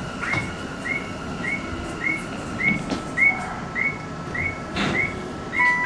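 Electronic chirping signal at a subway station: a short, bird-like high chirp repeating evenly, nearly twice a second, over a steady hum, with a couple of brief knocks in between.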